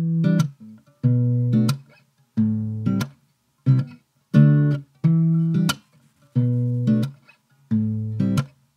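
Background music: a guitar playing a run of short plucked chords, a new one about every second, each ringing briefly before it stops.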